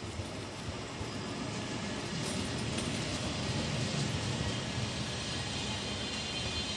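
Double-deck commuter train passing on the tracks: the steady rumble and rail noise of its coaches rolling by, growing louder about two seconds in as the train draws level.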